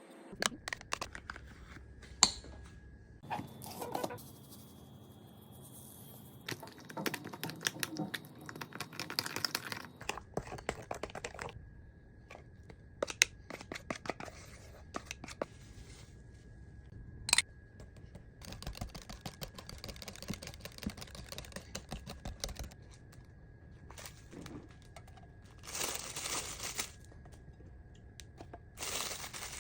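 Kitchen handling sounds while making tiramisu: packaging crinkling and tearing, with scattered clicks and knocks of containers and utensils, and a faint steady high-pitched tone underneath.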